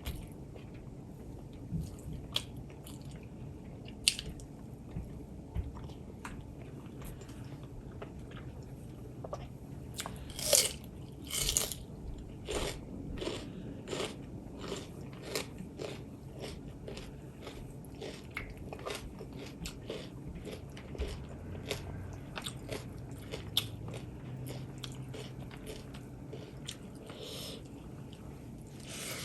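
A person eating close to the microphone, biting and chewing with wet, smacking mouth sounds. There is a cluster of loud crunchy bites about a third of the way in, then steady chewing clicks at roughly two a second.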